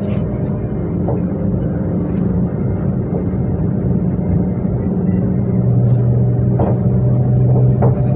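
Z 20500-series (Z2N) electric multiple unit's motor car humming with steady tones; the main tone drops lower about five and a half seconds in, with a few faint clicks.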